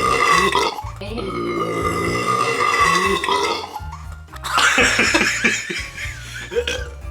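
Loud burps from someone who has just downed a bottle of Sprite: a short one, then one long drawn-out burp of about three seconds that drops in pitch as it ends, followed by rougher, broken-up burping, over background music.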